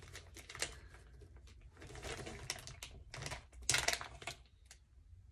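A clear plastic bag of wax melts crinkling and rustling in a scatter of light clicks as it is handled, with sniffing.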